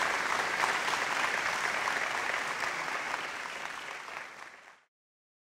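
Audience applauding, a dense patter of many hands clapping that fades away and cuts off about five seconds in.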